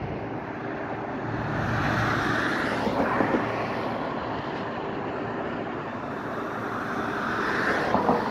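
Road traffic: cars passing along a street, one swelling past about two seconds in and another near the end, over a steady background hum.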